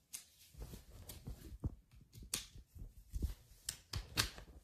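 Small objects being handled close to the microphone: a busy run of light clicks and taps with a few low thumps, about a dozen sharp ones over four seconds.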